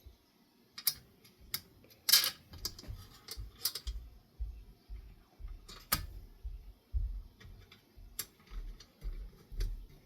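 Irregular clicks and light taps of ceiling fan parts being handled during cleaning, a sharper knock about two seconds in and another about six seconds in, over soft low handling bumps.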